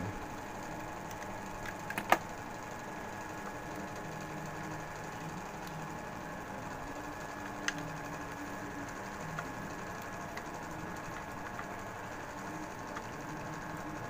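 Small clicks and taps of wires and crimp terminals being handled at a contactor, with one sharp click about two seconds in, over a steady machine-like hum.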